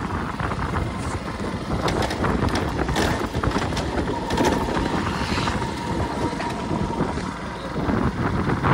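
Motorcycle engine running while riding, under wind rushing over the microphone, with a few knocks about two to three seconds in.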